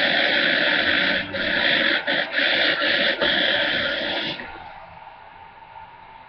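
Toy unicorn's small electronic speaker letting out a loud, harsh, garbled noise that sounds possessed, with a few brief breaks, stopping about four seconds in and leaving low room sound.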